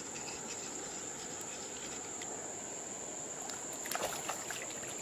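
A hooked trout splashing and thrashing at the river's surface close by, in a cluster of sharp splashes starting about four seconds in. Under it runs a steady high insect trill and the wash of moving water.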